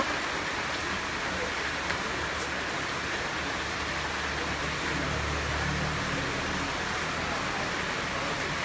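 Steady hiss of roadside traffic noise. A passing motor vehicle's low hum swells about five seconds in.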